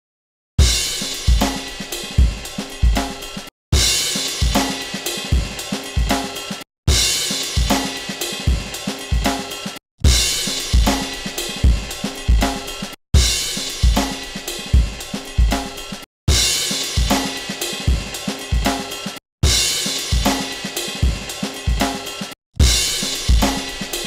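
Drum-kit loop from Logic Pro's sample library with kick, snare, hi-hat and cymbals, played as about eight short clips of roughly three seconds each, split by brief gaps. The clips switch between the dry loop and the loop reamped through a Universal Audio 710 Twin-Finity tube preamp fitted in turn with JJ and Telefunken ECC83 (12AX7) tubes.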